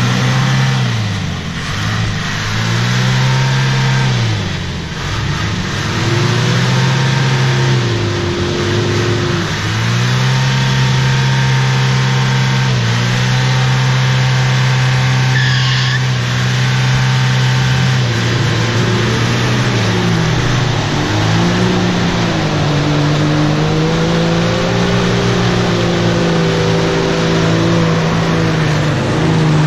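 Off-road 4x4's engine revving hard in repeated surges, rising and falling every couple of seconds, then held at high revs for long stretches, as its wheels spin in deep mud trying to pull out.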